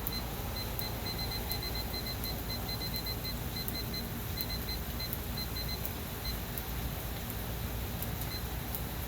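A smoker's digital control panel beeping as its temperature is set: a string of short, high, same-pitched beeps, some in quick runs, stopping about six seconds in. Steady rain noise and scattered small clicks run underneath.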